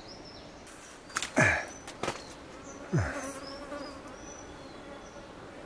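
A flying insect buzzing close by: it sweeps past twice with a falling pitch, the first pass the loudest, then hovers with a steady hum that fades out.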